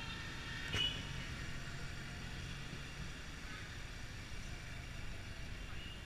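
A small taxi's engine running and road noise, heard from inside the cabin while driving, as a steady low hum. There is a short sharp knock about a second in.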